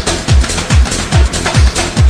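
Techno-style electronic dance music with a steady, heavy kick drum on every beat, about two and a half beats a second, over hi-hats and synths.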